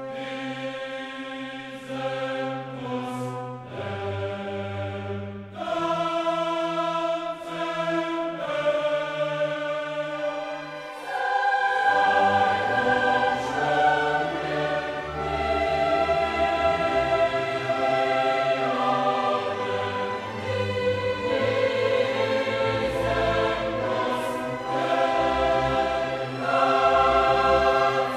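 Background music: choir-like voices holding long chords over an orchestral backing, swelling fuller and louder about halfway through.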